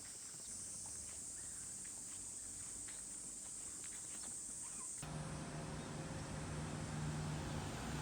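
Insects buzzing in a steady high-pitched drone with a few faint ticks. About five seconds in, it cuts abruptly to a low steady hum over a noisy rush.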